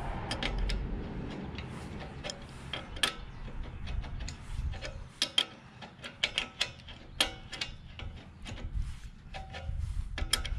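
Two steel combination wrenches clicking and clinking on a nut and bolt as a cultipacker's bearing flange is tightened down: a string of short, irregular metal ticks, some in quick pairs.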